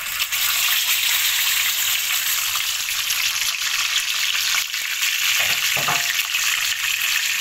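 Whole fish frying in hot oil in a wok: a loud, steady sizzle that starts as the fish goes into the oil.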